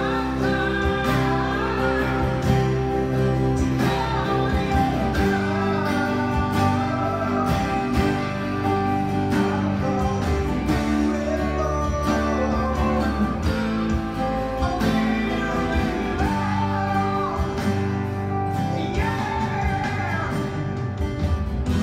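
Electric guitar strumming chords in 6/8 along with a recorded song that has a singing voice.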